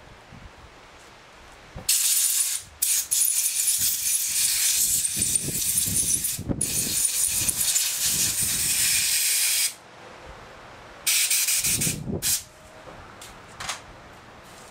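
Compressed-air blowgun blowing out an outboard carburetor body fresh from the ultrasonic cleaner. Long hissing blasts start about two seconds in and run for nearly eight seconds, with two brief breaks. Then comes another blast of about a second and a few short puffs near the end.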